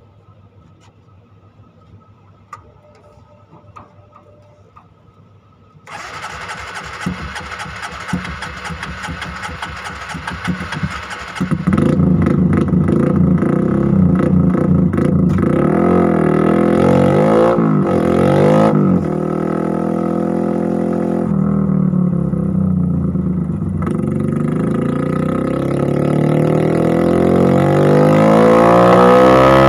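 Bored-up Honda CRF150L single-cylinder engine, running a mismatched big-bore build on a remapped ECU, starts about six seconds in and idles briefly. From about eleven seconds in it revs hard in long pulls that rise in pitch, easing off a little past the middle before climbing again near the end; a run the mechanic finds very poor.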